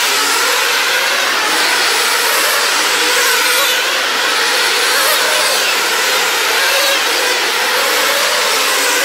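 Small two-stroke nitro glow engines of several RC sprint cars running flat out on a dirt oval, a loud continuous buzz whose pitch rises and falls as the cars brake into and power out of the turns.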